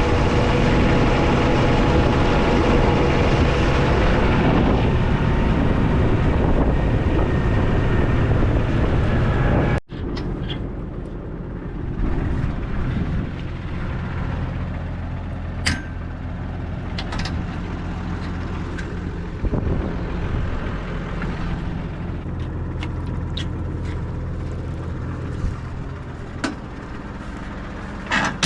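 Tractor engine running steadily and loudly, then after a sudden break about a third of the way in, a quieter steady idle with a few sharp clicks.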